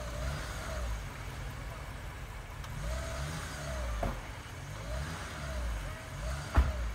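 Off-road 4x4 engines running in the snow, one revving up and down over and over. A sharp knock near the end is the loudest moment.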